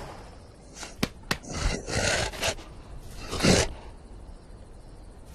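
Cartoon sound effects of a tangled struggle: two sharp clicks about a second in, then scraping and rubbing noises, the loudest a swish about three and a half seconds in.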